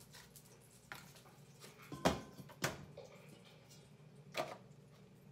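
Four sharp clicks and knocks, the loudest about two seconds in, from a clear plastic clamshell food container and a kitchen knife being handled and set down on the counter.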